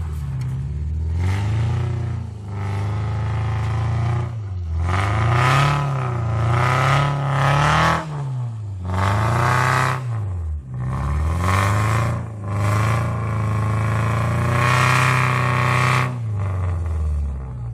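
Car engine revving up and down over and over, its pitch climbing and falling back in surges of a second or two, with a long held rev near the end.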